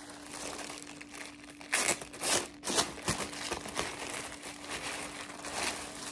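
Clear plastic poly bag crinkling and rustling as a folded pullover is handled and pulled out of it. The loudest crinkles come in a cluster of sharp rustles about two to three seconds in.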